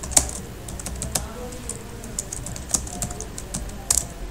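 Typing on a computer keyboard: quick, irregular key clicks, with a louder click just after the start and another near the end.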